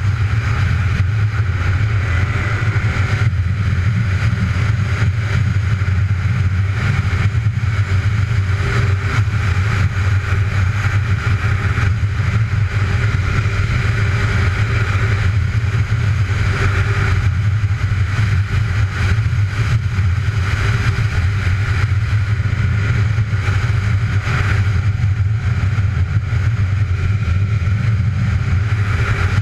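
Engine of an off-road vehicle running steadily at riding speed, with a constant rush of wind noise over it.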